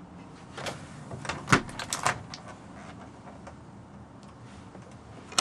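Small RV refrigerator and freezer doors being handled: a quick run of clicks and knocks in the first two seconds, the loudest a sharp knock about a second and a half in, and another click near the end.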